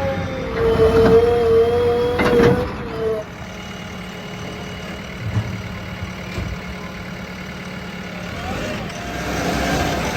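Diesel engines of heavy machinery running. A loud, steady whine sounds over them for about the first three seconds, then stops. The engine noise then runs steadily and builds again near the end.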